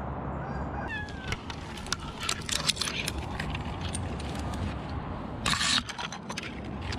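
Short clicks, rustles and scrapes of a tree climber's gear and conifer branches as he moves about in the tree, starting about a second in, with a louder scraping rustle about five and a half seconds in.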